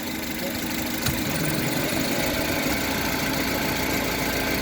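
Honda HR-V idling in Drive with a steady hum from the CVT, a hum that comes on only when the CVT is put from Park or Neutral into D; the owner thinks the CVT's bearings are the cause. A light click about a second in.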